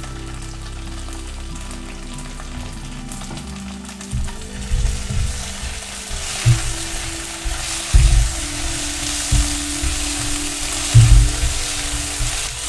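Potato snacks frying in hot oil. A sizzle sets in about four seconds in and grows, with occasional low thumps from stirring or handling the pan, over soft background music.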